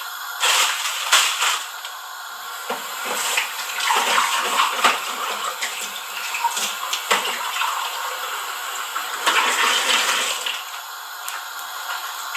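Fine vermicelli frying in ghee in a nonstick wok: a steady sizzle with scattered crackles, louder in several spells.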